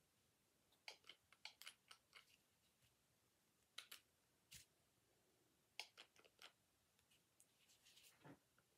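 Near silence broken by faint clicks and light handling noises of hand craft work while glue is put into a hole in a styrofoam doll body, coming in a few short clusters of sharp ticks.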